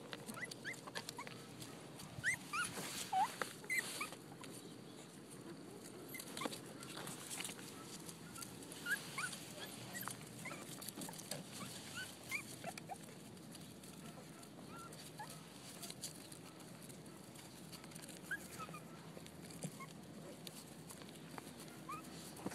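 Chihuahua puppies squeaking and whimpering in play, many short high-pitched squeaks scattered throughout and thickest in the first few seconds, over small clicks and rustling.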